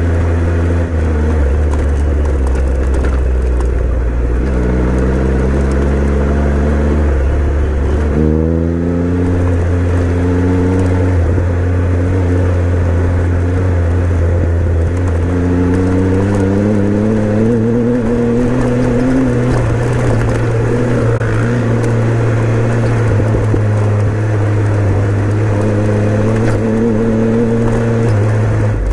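Motorcycle engine running under way, its revs climbing and dropping back several times as it accelerates and changes gear, with a steady low engine note underneath.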